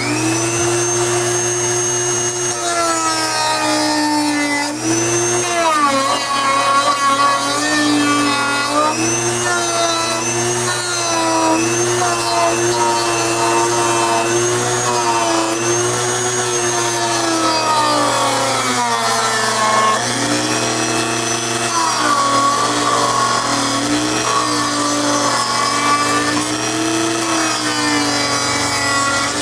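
Dremel rotary tool running, rounding over the edges of a Kydex holster. Its motor whine dips in pitch each time the bit bites into the plastic and rises again as it eases off, over and over.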